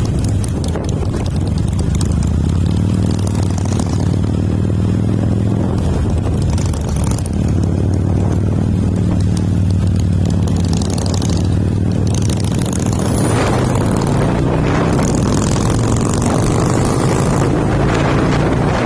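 Harley-Davidson V-twin engine running steadily at road speed, heard from the rider's seat, its pitch rising and falling slightly with the throttle. Wind rushes over the microphone.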